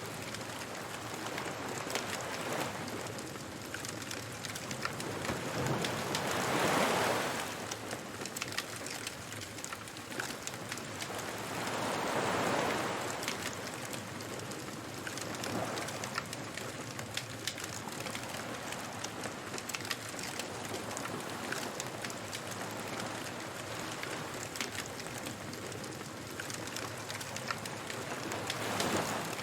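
Beach bonfire ambience: a fire crackling steadily while waves wash in, three surges of surf swelling and fading over the crackle.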